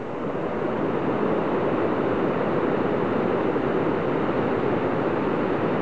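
Steady rushing of the fast, turbulent whitewater of the Middle Fork Nooksack River, a glacier-fed mountain river.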